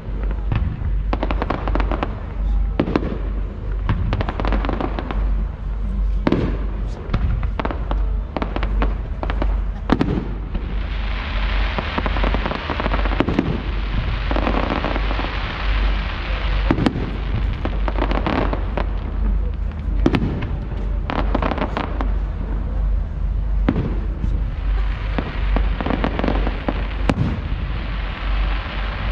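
Fireworks display: a fast series of shell bursts and bangs, with stretches of dense crackling about ten seconds in and again near the end.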